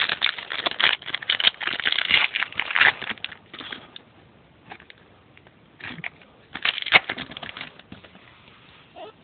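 Baseball card pack wrapper being torn open and crinkled, a run of crackling rustles for about three seconds, then another burst of crinkling about six seconds in.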